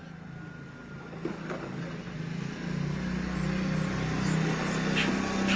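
A motor vehicle's engine running and growing steadily louder as it draws near. Short bird chirps come over it, one faint pair early on and a clearer one near the end.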